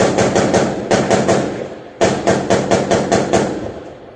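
Automatic gunfire in rapid bursts of about six or seven shots a second, one string running about a second and a half, each string echoing as it dies away.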